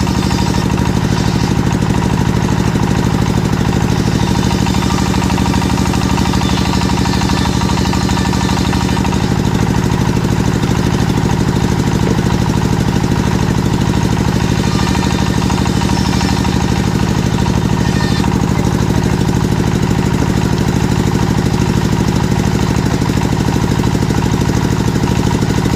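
Engine of a circular-saw wood-cutting machine running steadily with a fast, even pulse.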